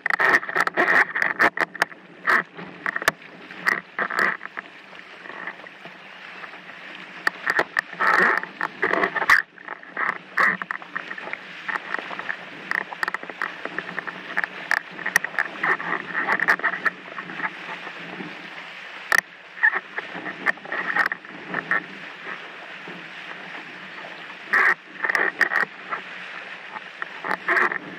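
Water rushing and splashing against a windsurf board sailing through light chop, swelling in uneven surges, with frequent sharp knocks and rattles from the board and rig.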